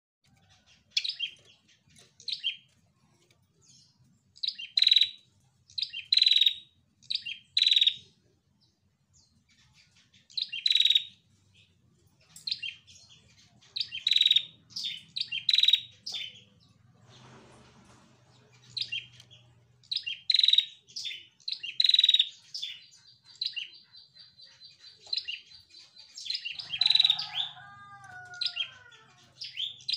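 Female prinia (prenjak) calling: sharp, high chirps in quick bursts of two to four, with short pauses between, over and over. Near the end a high note is held, then a few lower notes fall in pitch. This is the kind of call used to provoke other prinias into singing.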